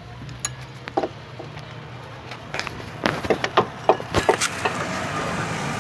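A series of sharp clicks and knocks, like hand tools working on a car engine, sparse at first and busier from about three seconds in, over a steady low hum.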